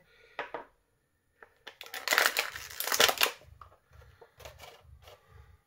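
Small clear plastic bag crinkling and rustling as spare action-figure heads are taken out of it, loudest about two seconds in, followed by a few small clicks.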